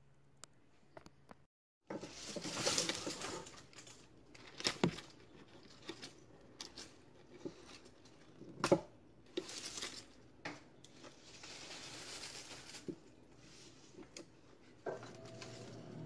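Scissors snipping through rose stems, with rustling of the leaves and petals as the flowers are handled. There are several sharp snips, the loudest about nine seconds in.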